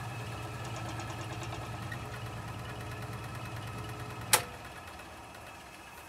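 Wood lathe motor running steadily on slow speed with a rough bog oak blank spinning on the chuck. About four seconds in there is a sharp click as it is switched off, the hum stops and the lathe winds down.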